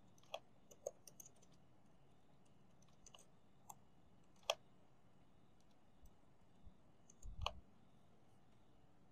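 Faint, sparse keystrokes on a computer keyboard as a shell command is typed: a handful of separate key clicks with pauses between. The loudest comes about halfway through, and a short cluster with a dull thump comes near the end.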